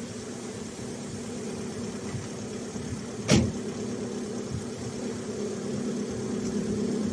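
Audi A3 2.0 TDI four-cylinder diesel engine idling steadily, its accessory belt running on a new tensioner with no racket from the belt drive. There is one sharp click about three seconds in.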